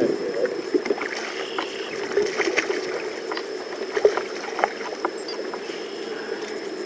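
Water splashing and sloshing beside a small boat as a hooked channel catfish thrashes at the surface, over a steady wash of water, with scattered small knocks and clicks.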